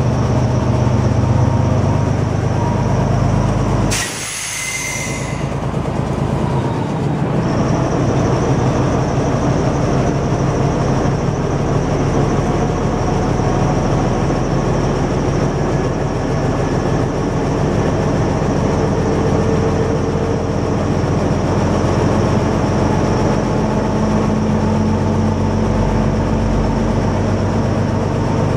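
Árpád diesel railcar running along the line, heard from inside the driver's cab: a steady engine drone with wheel and rail noise. About four seconds in there is a short burst of hiss as the low engine note briefly drops away, then the steady running picks up again.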